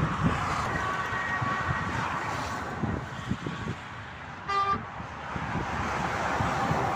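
Motorway traffic passing by, with a short single horn toot about four and a half seconds in.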